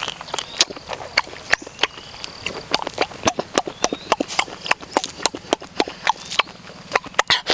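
Close-up eating sounds: a run of sharp, irregular clicks and smacks, several a second, as small orange fruits are cracked open, peeled by hand and eaten.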